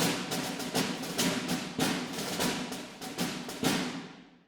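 Background music made of percussion, knocking drum and wood-block beats, fading out near the end.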